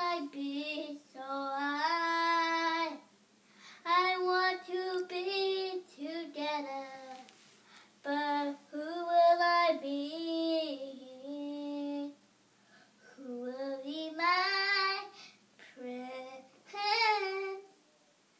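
A young girl singing solo and unaccompanied, holding and sliding between notes in phrases with short pauses between them.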